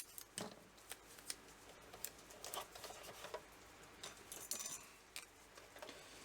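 Faint, scattered clicks and light knocks of small hard objects being handled, with a brief rattling cluster about four seconds in.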